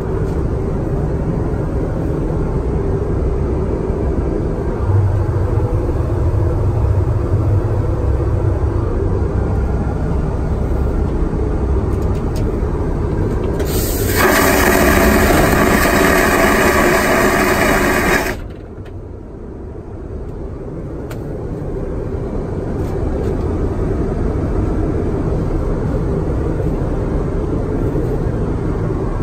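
Airliner vacuum toilet flushing, pulling a strip of toilet paper down the bowl: a loud suction whoosh starts about halfway through, lasts about four seconds and cuts off sharply. The steady drone of the aircraft cabin runs under it and returns after it.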